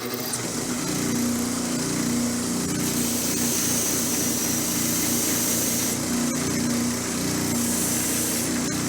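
Motor-driven wire wheel running with a steady hum, and a scratchy hiss as a small steel plane part, a screw or nut, is held against the spinning wire to clean off rust and grime. The scratching is strongest from about three to six seconds in.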